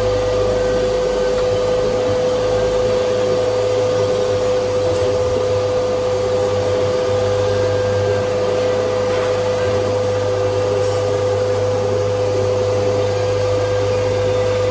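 A CNC cutting machine's oscillating knife working through material, the machine running with a loud, steady drone and a constant mid-pitched hum that doesn't change.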